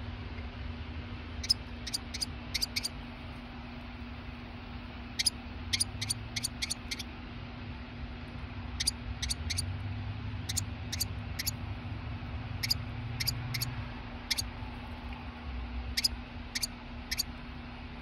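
Northern cardinal calling: short, sharp, high-pitched chips in quick runs of three to five, repeated every few seconds, over a steady low hum.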